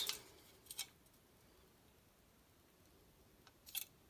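Two faint metallic clicks as quad-rail handguards are handled and knocked together, one under a second in and one near the end, over quiet room tone.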